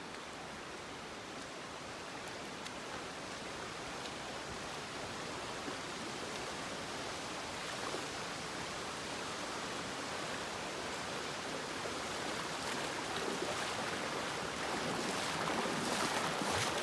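Shallow river running steadily over a rocky bed, with the splashing steps of a person wading through it getting louder near the end.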